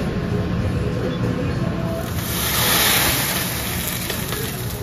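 Restaurant room noise: a steady low rumble, with a loud hiss that swells about two seconds in and fades near the end.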